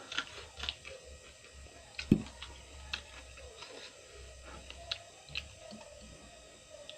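Close-up mouth sounds of chewing raw cucumber: scattered wet crunches and clicks, with one louder thump about two seconds in.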